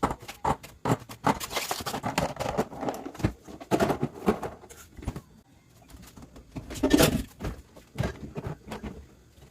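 Many quick clicks and knocks, with a few short rustling scrapes, of items and containers being handled and set down in a small room.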